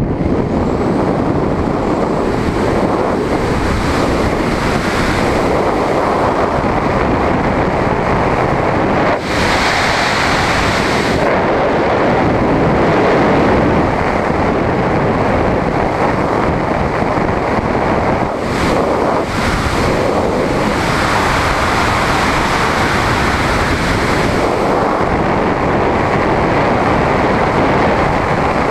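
Loud, steady rush of air over the camera microphone in wingsuit flight, easing briefly twice along the way.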